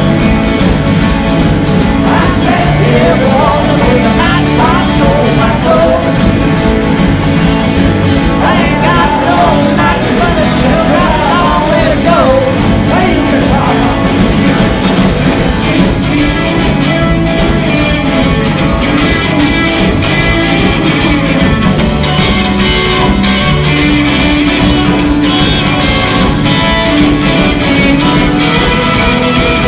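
Live rock and roll band playing an instrumental break: an electric guitar takes a lead over strummed acoustic guitars and drums. Its bending melodic lines are strongest in the first half, with a few held notes near the end.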